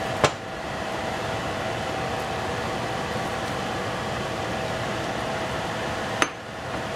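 Diced tomatoes sizzling in a stainless steel saucepan over a gas burner, a steady hiss with a faint steady hum under it. Two sharp clinks against the pot, one just after the start and one about six seconds in.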